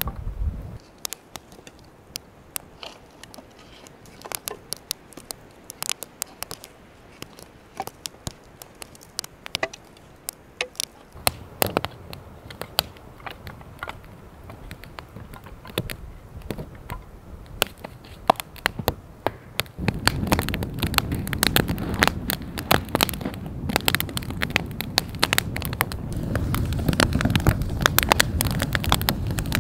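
Newly lit campfire of split kindling crackling and popping in sharp irregular snaps as it catches, with sticks knocking as they are laid on. From about twenty seconds in, a louder low rushing of burning flames joins the crackle.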